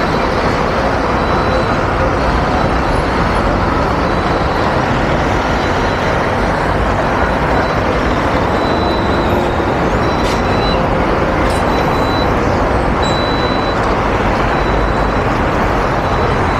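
Steady city traffic noise on a busy avenue, cars and buses running past without a break, with a thin high tone coming and going over it.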